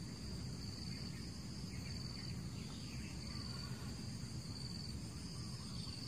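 Insects chirring steadily in a high-pitched trill that swells about once a second, over a low rumble.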